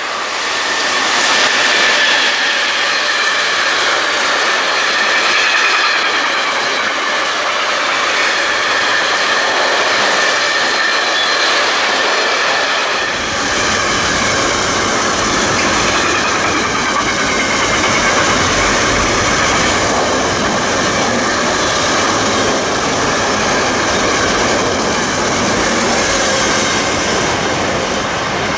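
Freight train of pressurised gas tank wagons hauled by an electric locomotive rolling past, a steady rail noise with high squealing tones from the wheels. About halfway through, a deeper rumble joins in as the wagons pass close by.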